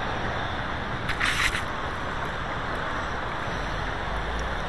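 Steady rush of flowing river water, with a short rustle about a second in.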